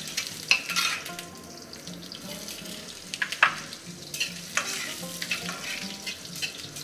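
Green chillies and ginger sizzling in hot oil in a metal wok as a tempering of spices fries, while a metal spatula stirs them, scraping and clicking against the pan several times.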